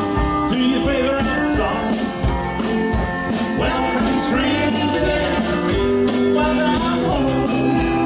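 Live country band playing with drum kit, acoustic and electric guitars, and a tambourine shaken in time, with no lead vocal.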